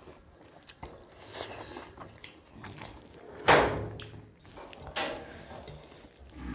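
Two people eating rice and curry by hand from steel plates: chewing, and fingers mixing the food on the plates. There are two sharp, louder sounds, about three and a half and five seconds in.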